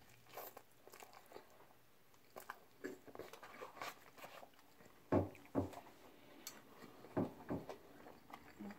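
A person chewing a mouthful of Reuben sandwich close to the microphone: soft, irregular wet smacks and lip clicks, with a few louder smacks about five seconds in and again around seven seconds.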